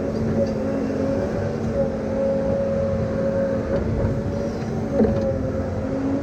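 Heavy earthmoving machine's diesel engine running steadily, with a held whine over the rumble and a single knock about five seconds in.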